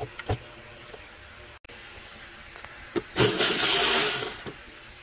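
A Milwaukee cordless electric ratchet runs in one burst of about a second, a few seconds in, backing off the hose clamp on the air intake duct. Before it come a few light clicks and knocks from handling the rubber intake boot.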